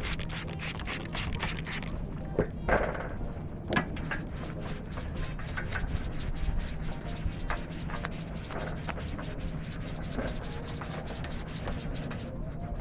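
Trigger spray bottle squirting a vinegar-and-water mix onto a solar panel in quick pumps, about three or four a second, then a couple of knocks, then a cloth rubbing back and forth over the panel's glass in steady wiping strokes.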